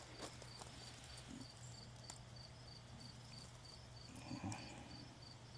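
Faint cricket chirping in short, even pulses about three times a second, over a faint steady low hum.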